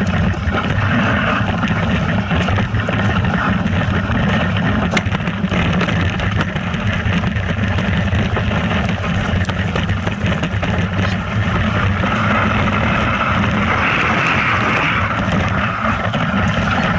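A vehicle engine running steadily at an even speed, with a constant low hum.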